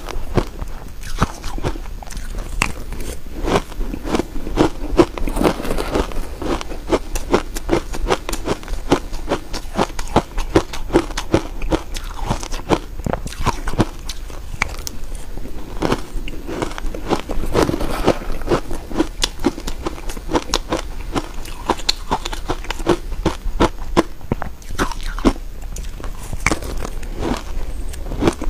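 Crushed ice coated in matcha powder being bitten and chewed, a dense, continuous run of sharp crunches and crackles.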